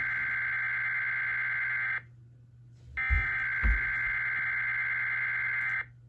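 Emergency Alert System SAME data bursts: long stretches of two-tone digital warbling, each about three seconds, with a second's gap between them. One burst cuts off about two seconds in, the next starts about a second later and stops near the end. These are the header bursts that open a relayed Child Abduction Emergency (Amber Alert). Two low thumps sound about three seconds in.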